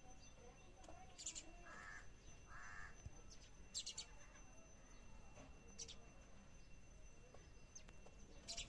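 House sparrows chirping faintly: short, high, scattered chirps. Two lower, longer calls from another bird come about two seconds in.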